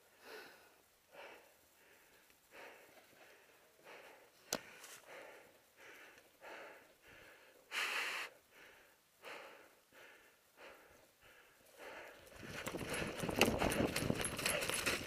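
Heavy, even breathing close to the microphone, about one breath every two thirds of a second, with a sharp click about four and a half seconds in and a short louder rush of noise around eight seconds. From about twelve seconds in it gets louder with running footsteps and gear rustling over dry leaves and dirt.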